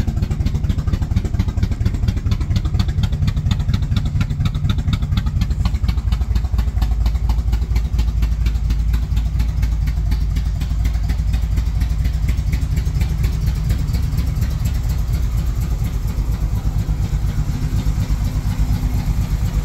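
1978 Chevrolet Monte Carlo's rebuilt carbureted engine idling steadily with a dense, even exhaust beat. The owner says the engine needs timing and carburetor work, as it kept backfiring and would not accelerate.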